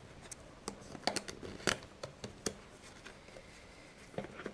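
Product packaging being handled and pried open by hand: a scattering of short clicks and rustles.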